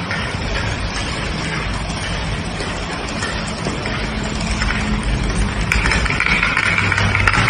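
Playing cards standing in a domino run toppling one after another in a chain, a steady fast rattle that grows a little louder near the end.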